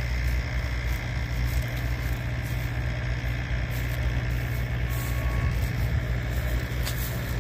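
Engine idling with a steady low rumble.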